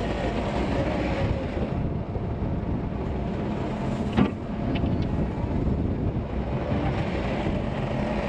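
Engine of a small crab-steer farm loader running steadily while it works feed into a mixer, with one sharp clank about four seconds in.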